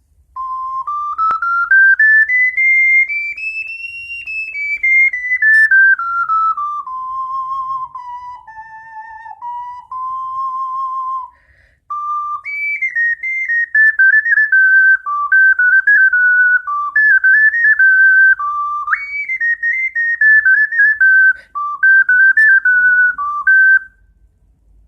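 Moon's tear soprano C 12-hole ocarina played: a scale stepping up and back down in pure, whistle-like notes, then, after a short break about halfway through, a quick stepping melody in its upper range.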